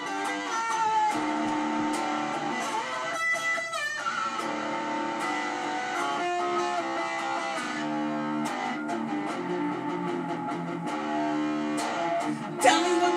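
A guitar playing on its own, moving through chords and picked notes. There is one sharp, loud accent near the end.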